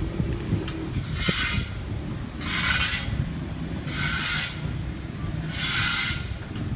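Four rubbing strokes in an even rhythm, about one every one and a half seconds, from hand work preparing optical fibres for fusion splicing, over a steady low rumble.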